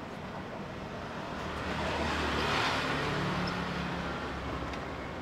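A road vehicle passing by: a low engine hum under a rush of noise that swells to a peak about halfway through and then fades.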